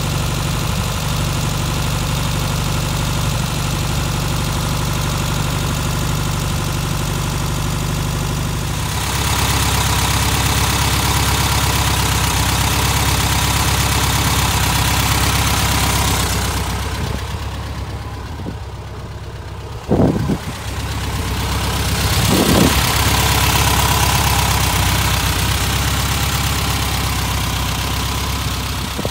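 1964 VW Beetle's air-cooled flat-four engine idling steadily. Its tone changes about nine seconds in, and past the middle it drops away briefly, broken by two short sharp sounds.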